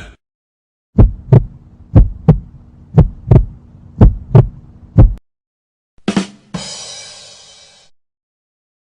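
Heartbeat sound effect: low double thumps about once a second, four pairs and a last single beat. About a second later comes a short hit, then a ringing tone that fades away over about a second and a half.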